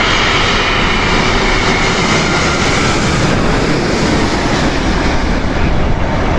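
Jet airliner roaring low overhead on final approach, with a whine that falls in pitch as it goes away.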